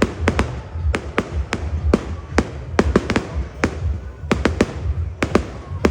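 Fireworks going off in quick succession: an irregular string of sharp bangs, several a second, over a steady low rumble.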